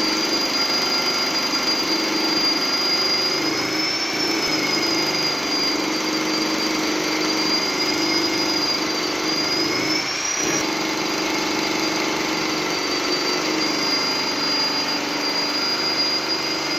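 Corded hammer drill boring holes into a concrete floor slab: a steady, loud motor whine with a grinding rumble under it, its pitch lifting briefly as the load on the bit changes, about four seconds in and again about ten seconds in.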